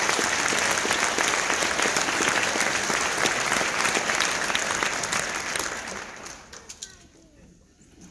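Audience applauding, dying away about six seconds in, with a few last scattered claps.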